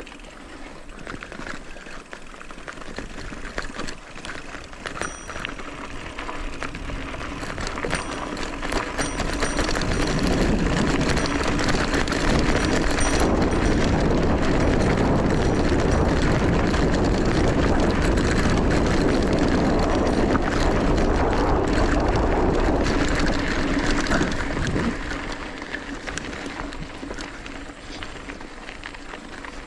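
Mountain bike riding over a dirt and gravel track: tyres crunching and rattling, mixed with wind rushing over the handlebar-mounted microphone. The noise grows louder about ten seconds in and eases off again about twenty-five seconds in.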